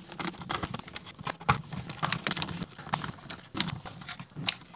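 Screwdriver backing out the small Torx screws from the plastic back of a Tesla Model Y wireless charger: irregular sharp clicks and taps, with the tool and loose screws knocking on a wooden workbench.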